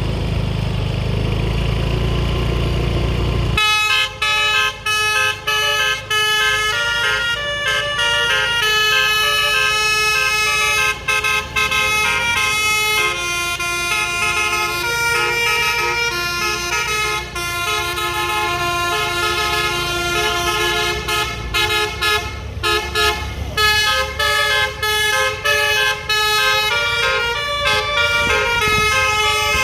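Indonesian 'telolet' multi-tone bus air horn played in long melodic runs, its notes stepping up and down with brief breaks. It starts about three and a half seconds in, after a low rumble.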